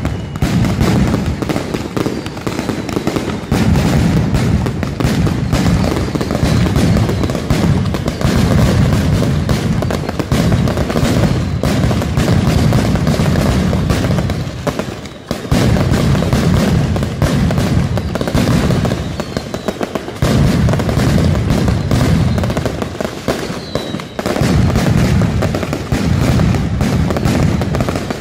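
Mascletà firecrackers and fireworks going off in a dense, continuous barrage of bangs and crackling, with deep booms underneath. The barrage eases briefly about halfway through and twice more later before surging again.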